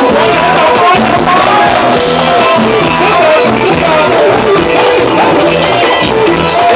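Thai ramwong dance band playing live: a steady beat under a winding melody line.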